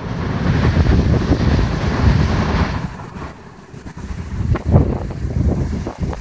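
Heavy surf breaking and washing up the beach, with strong wind buffeting the microphone. The broad hiss of the surf eases about three seconds in, leaving mostly uneven, gusty wind rumble.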